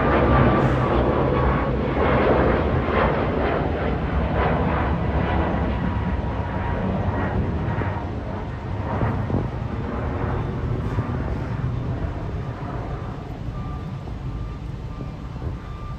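Boeing 737 MAX 9 jet airliner flying overhead: its CFM LEAP-1B turbofans make a steady rumble with a faint whine that falls slightly in pitch, fading slowly as the plane moves away.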